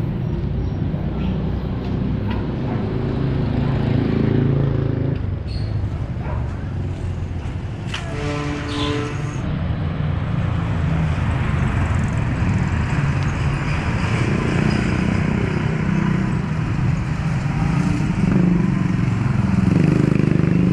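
Street traffic: motorcycles and motor tricycles running and passing, growing louder near the end, over a constant low rumble. About eight seconds in, a single pitched tone is held for about a second.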